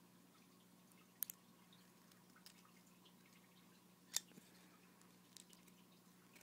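Scissors snipping thin aluminium cut from a Pepsi can: two sharp snips, about a second in and about four seconds in, with a few fainter clicks, over a faint steady hum.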